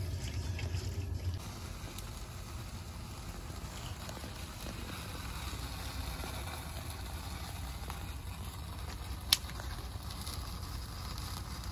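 Propane burner flame running with a steady low rumble and hiss as a plucked chicken is singed over it; the rumble eases a little after about a second. A single sharp snap about nine seconds in.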